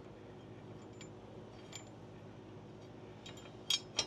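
Metal tools and blade hardware clinking against each other under a riding mower deck: a few light ticks, then two sharper clinks close together near the end, over a faint steady hum.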